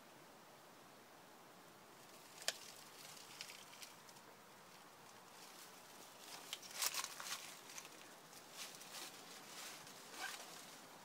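Faint scattered rustling and sharp clicks from someone moving among cave rocks and dry leaves, starting after a couple of seconds of faint hiss. One sharp click comes about two and a half seconds in, and a denser burst of crackling around seven seconds.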